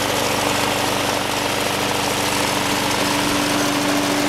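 Briggs & Stratton OHV engine of a Snapper 21-inch Hi-Vac walk-behind mower running at a steady speed.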